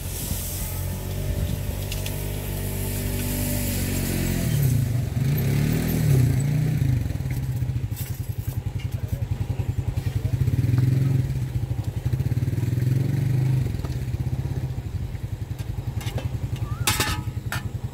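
An engine running, its pitch dipping and rising a few times about four to seven seconds in, then settling into a steady pulsing run.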